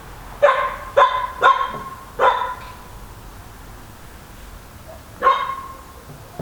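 A dog barking: four quick barks in the first couple of seconds, then one more about five seconds in.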